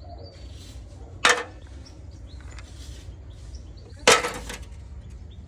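Freightliner truck giving two sharp knocks about three seconds apart over a low steady hum: the noise being tracked down.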